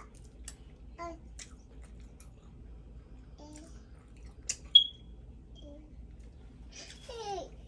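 Close-miked eating: small wet mouth clicks from chewing spaghetti. About four and a half seconds in comes one sharp clink with a brief ring, and near the end a short voiced sound.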